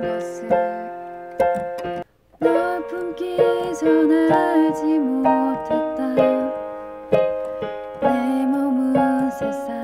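Piano ballad accompaniment of slow chords and single notes. It cuts out briefly about two seconds in and starts again.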